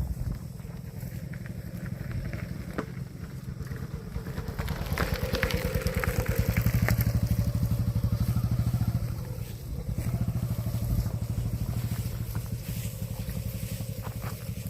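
A small engine running with a rapid, even low pulse, growing louder about a third of the way in and easing off again after the middle.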